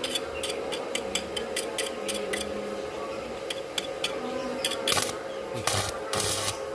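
Metal hand-tool work on brake parts: light, even clicks about four a second for the first few seconds, then a few short rasping strokes near the end.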